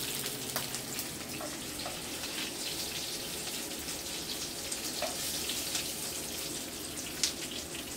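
Hot oil sizzling steadily in a frying pan of just-fried chicken pieces, with a few light clicks scattered through.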